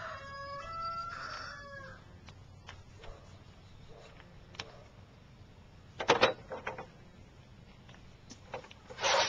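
A rooster crowing, the long crow dropping slightly in pitch and ending about two seconds in. Short bursts of sharp knocks follow about six seconds in and again near the end, and these are the loudest sounds.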